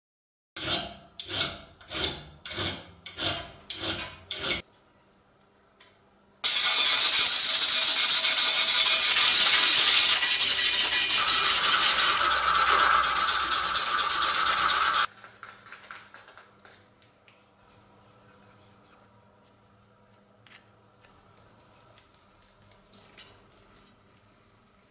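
Abrasive cloth rubbed back and forth by hand over a small steel tube clamped in a vise, about two strokes a second. This is cleaning the metal before brazing on braze-ons. It is followed by a loud, steady rasping lasting about eight seconds, then only faint ticks of handling.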